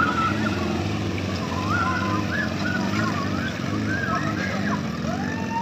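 Small four-wheel-drive jeep engines revving up and down under load while climbing a muddy, rocky rutted track, their pitch repeatedly rising and falling, with a short knock at the very start.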